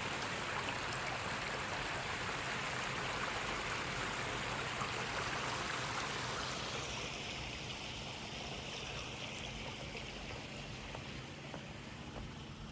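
Water splashing and running in a steady rush at the harbour edge, fading away a little past halfway through.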